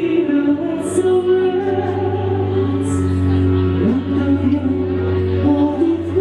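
A man singing into a handheld microphone, holding long notes with slides between them, over instrumental accompaniment with a steady low bass note.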